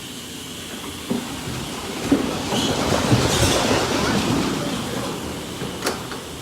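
A pen of weaned nursery piglets startled awake, jumping up and scrambling all at once: a dense rush of trampling hooves that builds about two seconds in and eases off toward the end, with a few sharp knocks.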